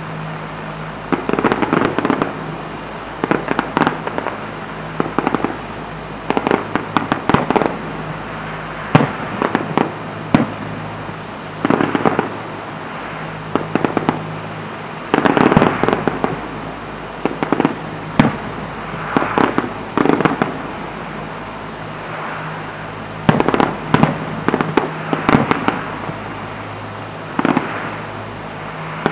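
Fireworks display: aerial shells bursting in clusters of sharp reports, a new volley every second or two.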